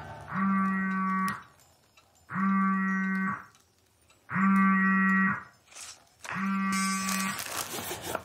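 Smartphone buzzing for an incoming video call in four even pulses, each about a second long and about a second apart.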